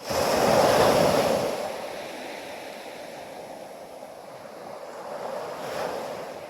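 Waves breaking on a shore: a wave crashes suddenly at the start, peaks about a second in and washes out, then a smaller swell rises near the end.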